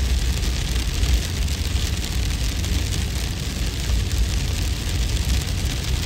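Steady wind and hail ambience: a deep, slightly buffeting wind rumble under an even, fine hiss of hail pattering.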